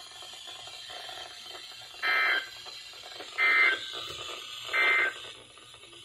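Three short bursts of EAS/SAME digital data tones, a harsh warbling buzz, from a Midland weather radio's speaker over faint radio hiss, each about half a second long and just over a second apart: the end-of-message code that closes a NOAA Weather Radio alert.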